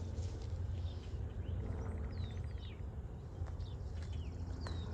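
Songbirds chirping in short falling calls, with a quick rapid trill about two seconds in, over a steady low hum.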